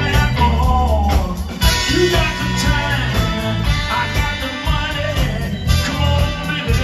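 Live soul-blues band: a man sings lead into a microphone over electric guitar, keyboard and drums.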